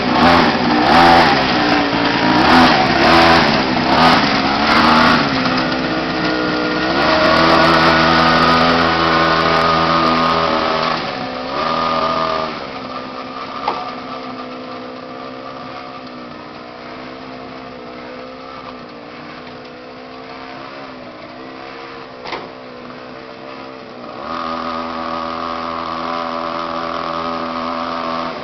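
Small motorbike engine running, its pitch rising and falling as it is revved for the first dozen seconds, then settling to a quieter steady run before coming back louder near the end.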